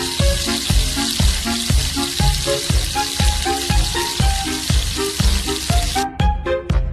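Fish sizzling as it fries in a hot pan of oil, a steady hiss that cuts off suddenly near the end, over background music with a steady beat.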